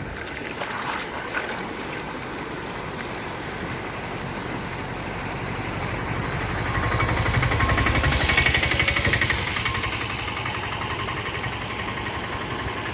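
A vehicle engine running over a steady rush of water, growing louder in the middle and then easing off.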